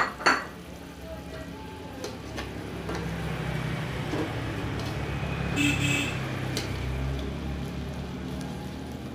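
Fried eggs sizzling in oil and seasoning in a metal wok, turned and pressed with a metal spatula; the sizzling grows louder about three seconds in. Two sharp knocks of the spatula against the wok at the very start.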